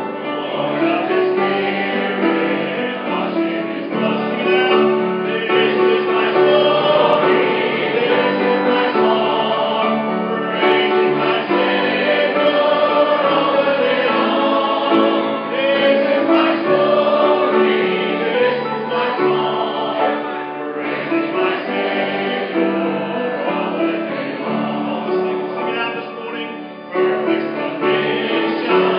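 Church choir singing a hymn in parts, accompanied by piano, with a brief drop near the end between phrases before the singing resumes.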